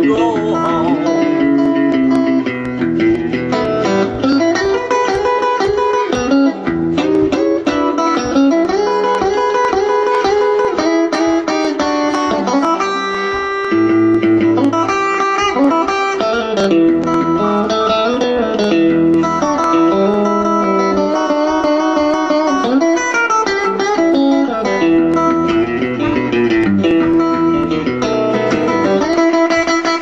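Live blues played on electric guitar and harmonica, with held and bending notes over the guitar.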